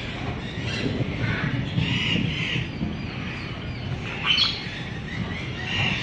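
White cockatoos giving a few harsh, raspy squawks. The sharpest and loudest comes about four seconds in.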